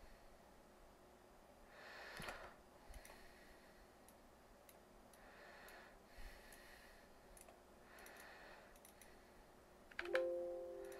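Soft breaths into a desk microphone and scattered computer mouse clicks. Near the end comes a sudden short ringing tone that fades out.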